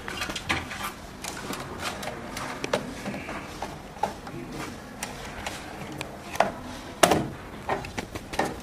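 Irregular clicks, taps and scrapes of a screwdriver and wire being worked into a terminal of a three-pole isolator, with a sharper knock about seven seconds in.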